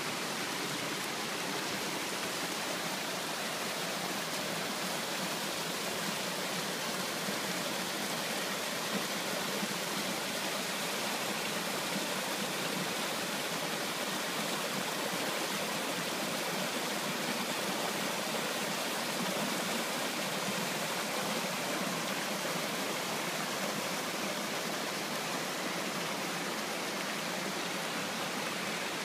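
Mountain stream running over rocks and small cascades: a steady, unbroken rush of water.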